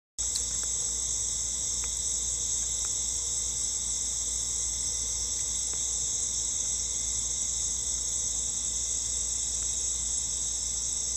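Steady, unbroken high-pitched chorus of night insects, such as crickets, trilling together.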